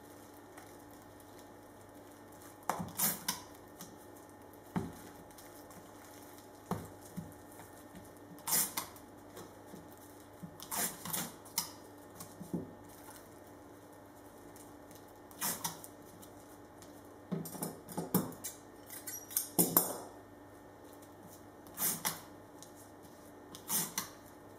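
Rustling of felt-like breather cloth being folded around a moulded part, with strips of masking tape pulled from a desk dispenser, torn off and pressed down, in short irregular bursts every second or two.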